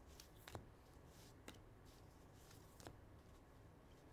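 Near silence, with three faint ticks of trading cards being flipped through and handled.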